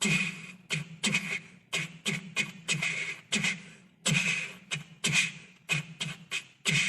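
Beatboxing: a steady mouth-made beat of short percussive clicks and hisses, about three a second, over a low hummed bass tone.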